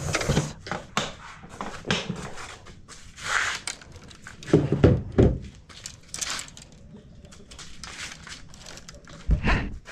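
Irregular knocks, clicks and rustling of fishing rods and tackle being handled at the open back of a car, with heavier thumps about five seconds in and again near the end.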